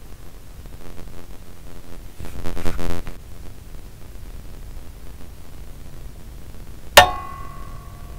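A buzzing hum swells around two to three seconds in and then fades. About seven seconds in comes one sharp metallic click with a brief ringing tone after it, as the high-pressure sodium lamp is switched off.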